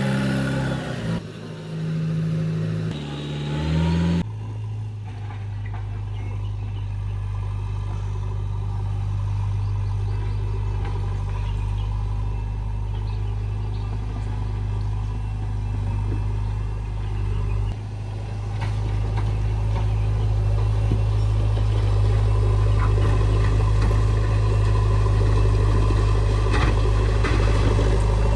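After a brief opening sound, the diesel engine of heavy farm machinery (a JCB backhoe loader or tractor) runs steadily with a low hum, growing a little louder later on.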